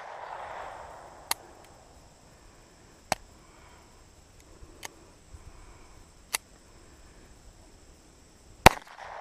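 Walther P22 .22 LR pistol firing a single shot near the end, its report echoing briefly. Three fainter sharp cracks come earlier.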